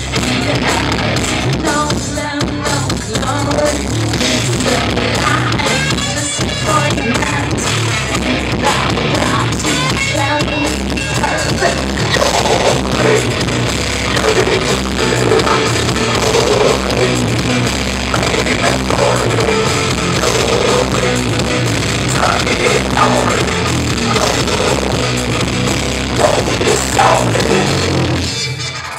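Heavy metal band playing live: distorted guitars and drum kit, with singing.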